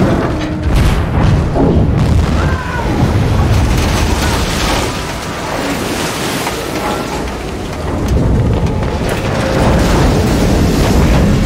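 Film sound mix of a tugboat ramming a surfaced U-boat in a storm at sea: heavy rain and surging waves under deep, rumbling booms from the collision.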